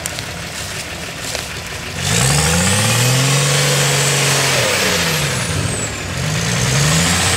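UAZ off-roader's BMW 2.4 turbodiesel engine working under load off-road. It revs up sharply about two seconds in and holds there, drops back around five seconds, then revs up again near the end.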